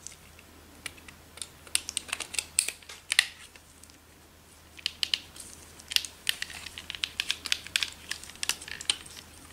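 Plastic clicks and scraping as a new drum cylinder is pushed into an HP CF219A imaging drum unit's housing. The clicks come in two spells of quick small ticks, one starting about two seconds in and a longer one about five seconds in.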